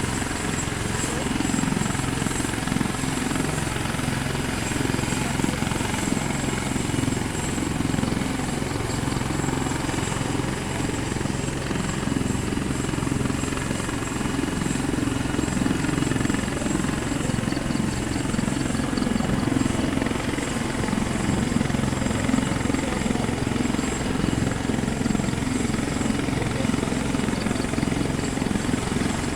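Helicopter flying, its rotor giving a steady low beat.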